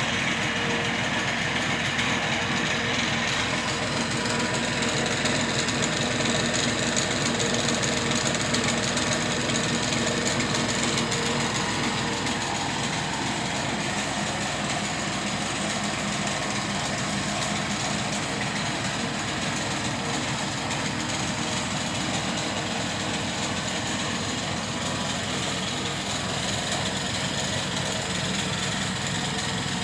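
Drill press motor running steadily with a dense mechanical whirr, settling slightly quieter about twelve seconds in.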